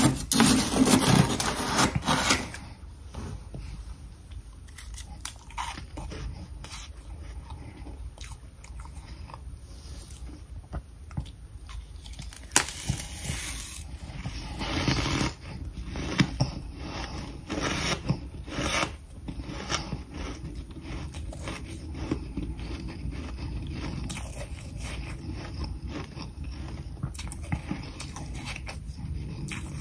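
A metal spoon scraping and scooping freezer frost from a freezer's walls, in quick strokes for the first couple of seconds. It is followed by a person biting and chewing a mouthful of powdery freezer frost, with scattered soft crunches.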